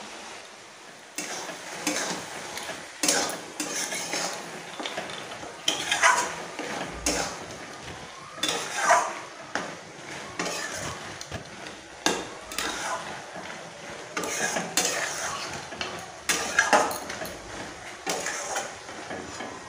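A spatula stirring thick cabbage and potato curry in a metal kadai, scraping against the pan in a run of irregular strokes that starts about a second in.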